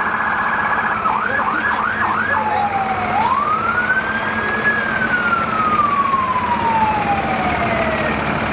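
Fire-department vehicle's siren sounding in a parade, cycling through patterns: a rapid warble, then four quick yelps, then one long wail that rises and slowly falls away. A steady low engine hum runs underneath.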